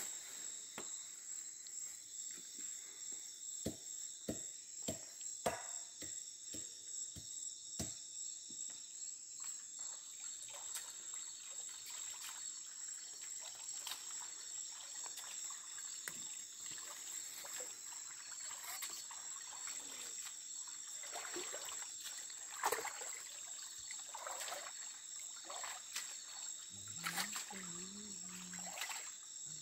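Rainforest insects calling steadily in a high-pitched chorus, some with an even pulsing beat, over a trickle of stream water. Scattered sharp clicks and knocks come through, and splashing in muddy water near the end.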